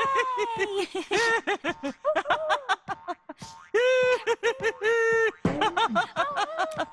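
High-pitched cartoon voice chuckling and snickering: a long run of quick repeated laughs, quieter for about a second a little before the middle.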